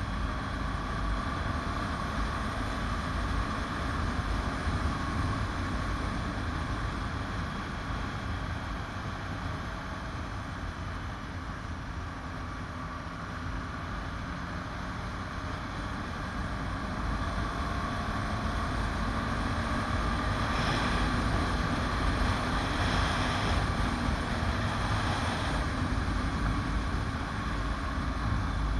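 Motorcycle running on the road, heard from an onboard camera: a steady engine note under heavy wind rumble on the microphone, rising gently in pitch and getting louder over the last ten seconds or so.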